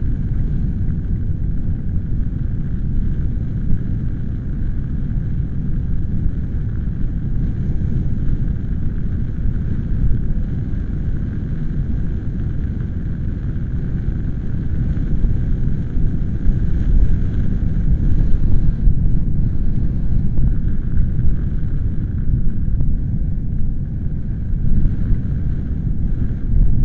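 Gusty wind buffeting the microphone: a loud, deep rumbling noise that swells and eases with the gusts, strongest about two-thirds of the way through.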